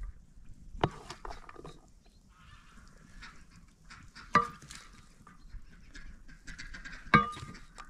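A wooden spoon knocking three times against an enamel bowl while pilaf is scooped out, each knock ringing briefly, with softer scraping and clatter between.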